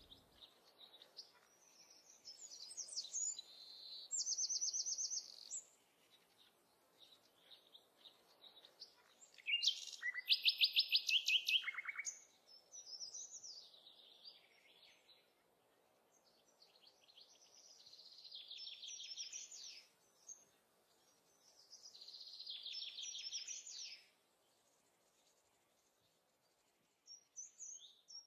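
Songbirds singing: a string of short, high phrases built of fast trills and repeated notes, with pauses between them. The loudest phrase comes about ten seconds in.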